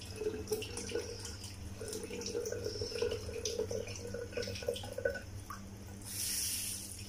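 Kitchen sink tap running while hands are washed under the stream: irregular splashing and dripping, with a brief louder hiss of water about six seconds in.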